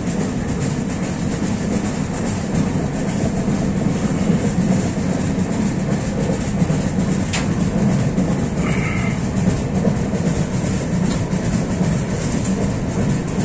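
Moving train heard from inside a coach at an open window or doorway: the steady running noise of wheels on the track. There is one sharp click about seven seconds in and a brief faint high tone near nine seconds.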